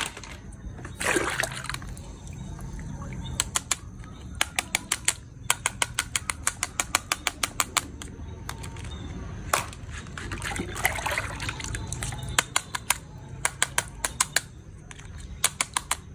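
Quick runs of sharp clicks, about six a second, repeating several times, with two short rustling scrapes, one about a second in and one in the middle.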